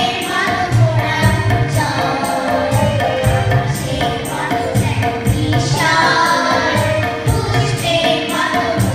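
A group of children singing a song together into stage microphones, over an accompaniment with a steady drum beat and a quick, regular high percussion rhythm.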